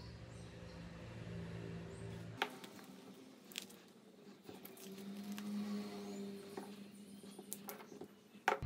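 Faint handling noises of 18650 lithium-ion cells and paper insulator rings: a few light, sharp clicks and taps, the loudest near the end.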